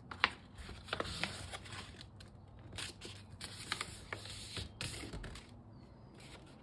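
A paper plate being folded and pressed flat by hand: irregular crackling and rubbing of the paper as it slides on the mat, with a sharp crackle just after the start.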